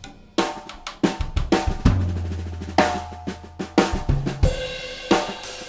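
Drum kit with Zildjian cymbals played in a groove and fill: quick snare and tom strokes over bass drum. A low drum rings out for about two seconds near the middle, and a bright cymbal crash lands near the end.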